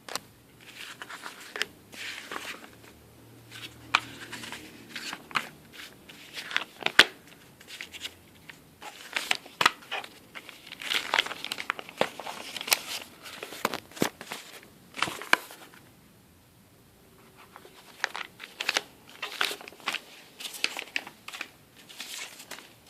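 Packaging crinkling and rustling in irregular handfuls as it is handled and pulled off during unboxing, with a few sharp clicks and a short pause about two-thirds of the way through.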